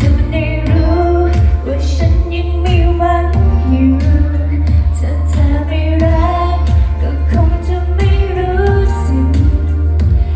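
A woman singing a Thai pop ballad live over a band accompaniment with a heavy bass and a steady beat.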